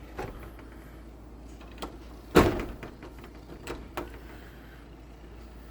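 A sudden loud knock about two and a half seconds in, with a few lighter clicks before and after it.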